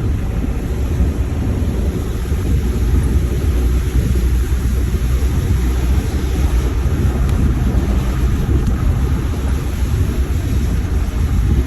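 Steady low rumble of a vehicle being driven, engine and road noise heard from inside the cab.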